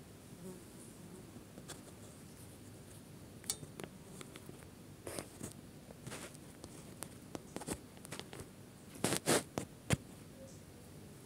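Paper being handled: scattered faint rustles and clicks, with a short cluster of louder rustles about nine seconds in.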